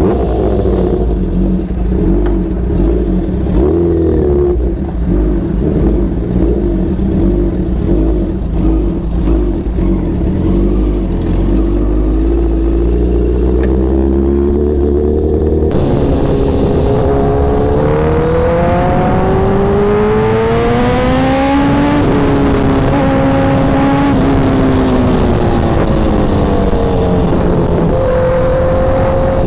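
Honda CBR1000RR Fireblade's inline-four engine running while the bike is ridden. At first it runs at low, steady revs. From about halfway its note climbs, drops sharply, holds, falls, and climbs again near the end as the bike accelerates and eases off.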